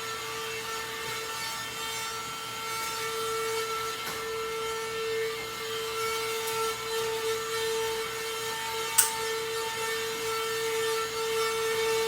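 Portable vacuum cleaner running: its small motor gives a steady whine over a hiss of air. A single sharp click sounds about nine seconds in.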